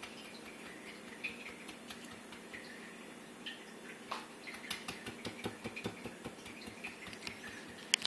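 Light clicks and taps of a utensil against a plate while Cool Whip is dolloped onto toast, sparse at first and coming quickly from about halfway in, with one sharper click near the end.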